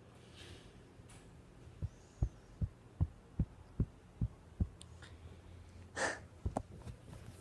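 A hand tapping on or beside the phone: a steady run of about eight soft, low thumps, roughly two and a half a second. About six seconds in comes a short breathy huff, followed by two more taps.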